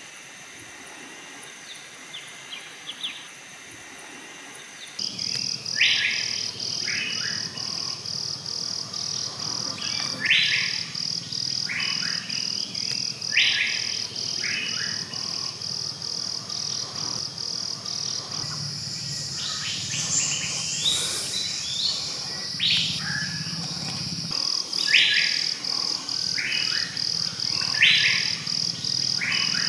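Forest ambience: an insect's high buzz in a fast, even pulse, with a bird giving loud, sharp calls every few seconds. Both start abruptly about five seconds in.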